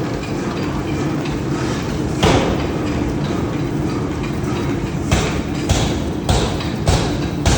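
Forging-shop machinery running with a steady mechanical din, broken by one loud metal strike about two seconds in. From about five seconds in, heavy strikes repeat evenly, a little under two a second, as a hammer or press works hot steel.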